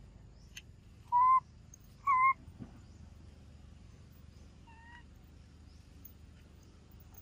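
A baby macaque gives two short coo calls about a second apart, then a fainter third call near the five-second mark.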